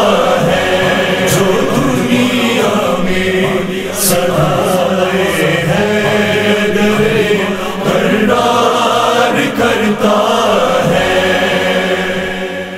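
Chorus of voices chanting the wordless backing of a manqabat, a Shia devotional song, in layered harmony; it starts fading out near the end.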